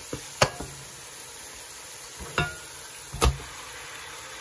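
Onion-tomato masala sizzling softly in a nonstick pot as raw chicken pieces are tipped in. A handful of sharp knocks and clatters come from the spoon and the chicken landing in the pot, the loudest about three seconds in.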